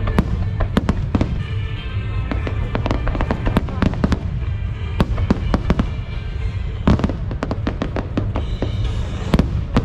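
Aerial fireworks going off in quick succession, many sharp bangs and crackles over a continuous low rumble, with music playing underneath.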